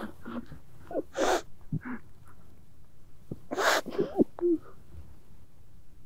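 Person sobbing: gasping, shaky in-breaths, the loudest just over a second in and again at about three and a half seconds, with short wavering cries between them.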